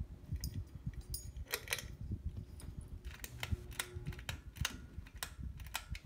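Clear glass light shades on a Harbor Breeze Springfield II ceiling fan's light kit clinking as a hand handles them: an irregular run of sharp glass clicks over a low rumble of handling.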